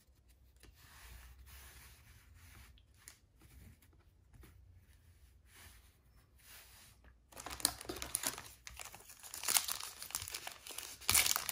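Faint rustling of cards being handled, then from about seven seconds in the crinkling and tearing of a foil trading card pack wrapper being ripped open, getting louder near the end.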